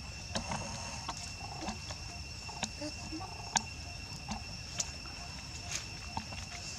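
Steady high-pitched insect chirring, two even tones held throughout, with scattered small clicks and taps over it, the sharpest about three and a half seconds in.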